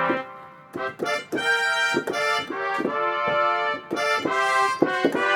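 Yamaha Montage M synthesizer's 'Orchestra Trumpets' patch played as a quick phrase of sampled trumpet notes, each note starting sharply, with short breaks between them.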